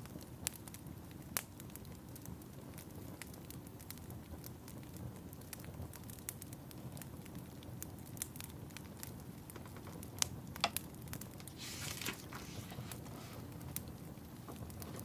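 Fireplace fire crackling: a steady low rush of flames with sharp pops and snaps at irregular moments, and a brief rustling hiss about twelve seconds in.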